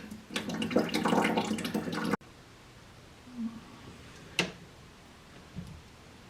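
Water surging and splashing out of a draining household water line for about two seconds, then cut off abruptly. After that comes quiet room tone with a faint sharp click.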